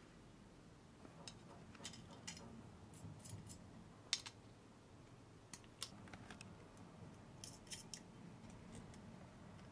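Faint, scattered small metallic clicks and scrapes of pliers gripping and tightening the nuts of audio jacks on a metal synth panel, with one sharper click about four seconds in.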